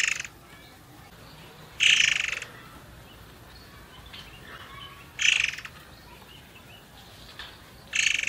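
A caged murai air songbird calling in short, loud, buzzy bursts of about half a second, roughly every three seconds, with faint chirps between. It is used as a lure call to set other murai air singing.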